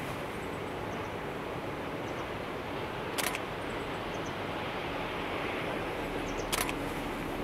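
Distant train running steadily across a bridge, heard as a faint rumble under outdoor hiss, with two short sharp noises about three and six and a half seconds in.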